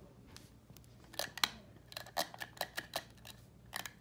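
A quick irregular run of light clicks and rattles, about a dozen, starting a second in, from a toy SUV being handled.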